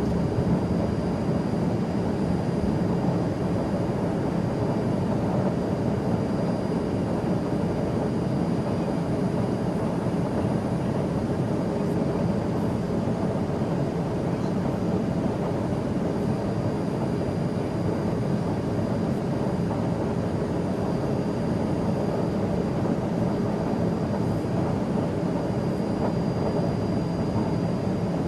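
Cabin noise inside a Learjet business jet in flight: a steady rush of engine and airflow noise with a faint, thin high-pitched whine held over it.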